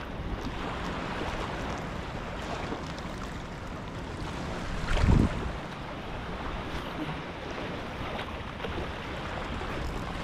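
Wind rushing over the microphone with small waves washing against a rocky seawall edge, steady throughout, with one brief louder low rumble about halfway through.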